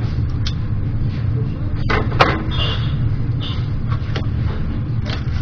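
A fixed-blade knife with an N695 steel blade cutting through raw chicken wings on a wooden cutting board. The blade knocks against the board several times, loudest a little after two seconds in, over a steady low hum.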